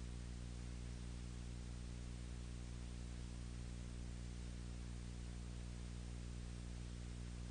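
Steady low hum with an even hiss over it, unchanging throughout: the noise floor of a silent film's soundtrack, with no other sound.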